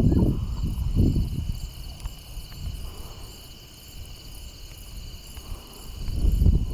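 Steady high chirring of insects, with a low rumbling noise in the first second and again near the end.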